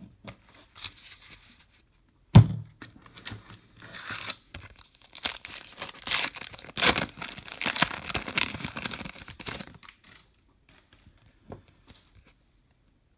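A single sharp thunk about two seconds in, then a trading card pack's wrapper being torn open and crinkled by hand for several seconds.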